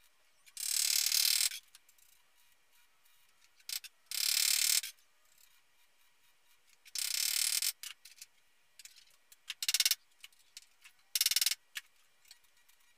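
Gasless flux-core MIG welder tack-welding car body sheet metal: five short bursts of arc, each under a second, the last two briefest, with small clicks between them.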